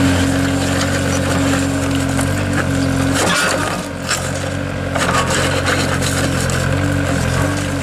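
Engine of a heavy road construction machine running steadily under load, with grinding and scraping noise over it and a brief dip about halfway through.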